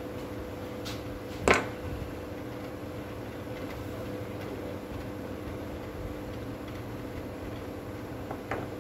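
Metal drill parts handled and knocked on a workbench: one sharp clack about one and a half seconds in and a couple of lighter clicks near the end, over a steady background hum.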